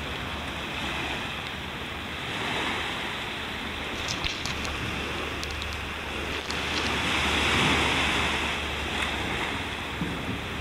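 Ocean waves breaking and washing up a beach, the surf swelling twice. A few faint ticks about four to five seconds in.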